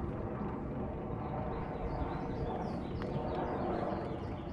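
Boat motor running steadily as the aluminium bass boat moves slowly, with a few faint bird chirps over it.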